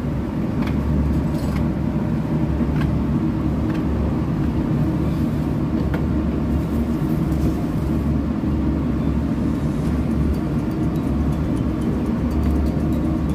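Engine-room machinery running with a steady, loud low drone. A few faint snips of scissors cutting paper sound in the first few seconds.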